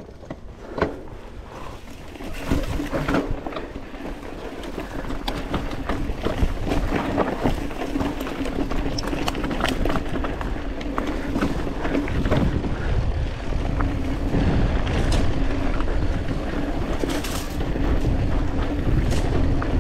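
A Commencal Meta TR 29 mountain bike rolling down a rough dirt singletrack: tyres running over dirt and stones, with frequent sharp rattles and knocks from the bike over bumps and wind rushing over the microphone. It gets louder over the first few seconds.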